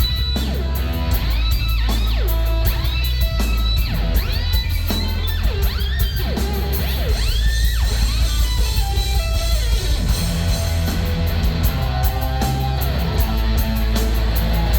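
Live rock band music with loud distorted electric guitar over heavy bass and fast cymbal hits. For the first half the guitar line swoops up and down in pitch about once a second, then it settles into held notes.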